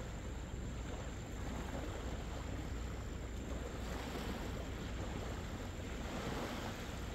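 Wind rumbling on the microphone over the steady wash of surf, the wash swelling somewhat from about four seconds in.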